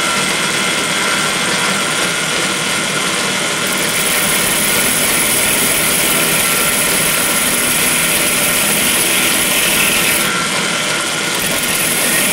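Drill press motor running steadily while a diamond core drill bores a half-inch hole in a glass wine bottle held under water. A higher hiss comes in a few seconds in, drops out briefly near the end, then returns.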